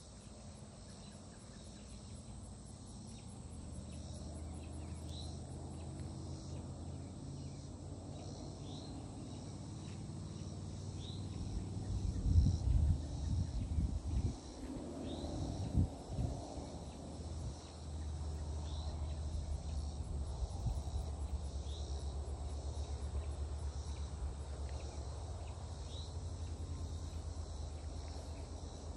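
Steady high-pitched insect trilling in a summer outdoor chorus, with a short rising chirp repeating about every two seconds. A low rumble runs underneath and swells with a few bumps around the middle.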